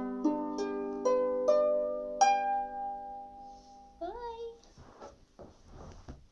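Harp closing a song with a few plucked notes, the last one struck about two seconds in and left to ring and fade away. Then a short rising voice-like sound and some soft rustling.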